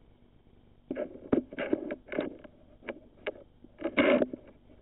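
Irregular scraping and rubbing with sharp clicks as a borescope's semi-rigid probe cable is worked into an engine's corroded coolant passage. It starts about a second in and is loudest near the end.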